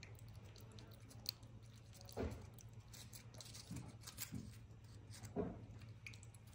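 A cat licking a lickable treat squeezed from a tube: soft wet licks and small mouth clicks, with louder smacks about two seconds in and again near the end, over a steady low hum.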